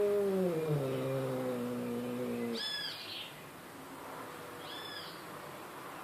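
A cat's long, drawn-out yowl, sliding down in pitch and cutting off suddenly about two and a half seconds in. After it come short high chirps, twice, about two seconds apart.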